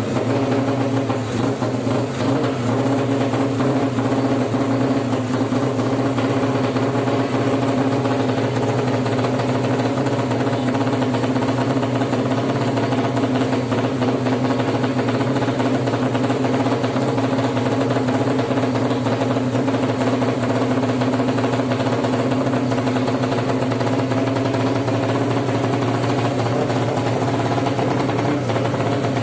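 Suzuki Satria FU motorcycle engine, bored out to 200cc for racing, running steadily at idle.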